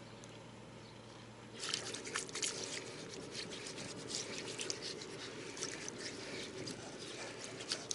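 Water trickling and dripping, with many small splashy clicks, starting about one and a half seconds in after a faint steady background.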